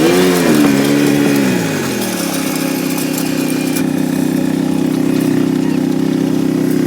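A small engine revving up and back down over the first two seconds, then running at a steady speed.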